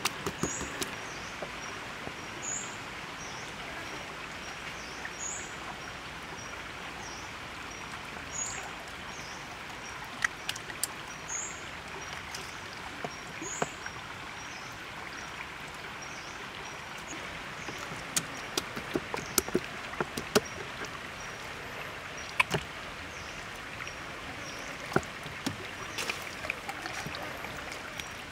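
Hands rubbing and squeezing seasoning into a raw whole chicken: wet slaps, squelches and clicks of hands on skin, scattered through and coming thicker in the second half, over a steady outdoor hiss.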